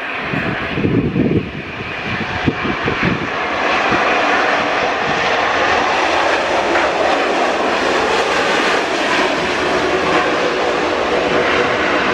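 Wind buffeting the microphone for the first few seconds, then a loud, steady jet engine noise from an Airbus A330-900 widebody airliner as it rolls along the runway.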